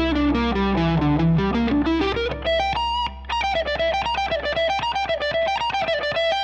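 Overdriven electric guitar with an SG-style solid body, playing a fast single-note lead line. The run falls steeply in pitch and climbs back up, then carries on as quick notes higher up the neck, and it stops abruptly at the end.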